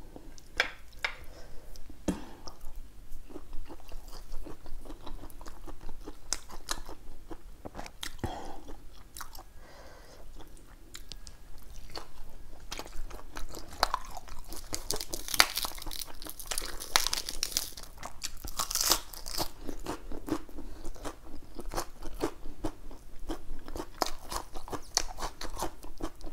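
A person chewing and crunching food close to a clip-on microphone, fresh lettuce and cucumber eaten with steamed chicken, as many small crisp clicks, with the loudest stretch of crunching about halfway through.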